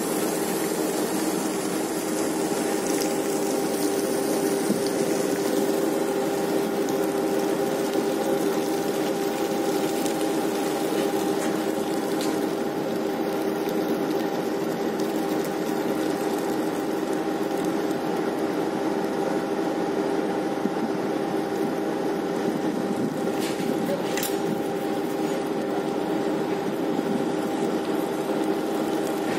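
Steady hum of a research ship's deck machinery, with several held tones, over a constant rush of water discharging alongside the hull. A couple of faint clicks come about three quarters of the way through.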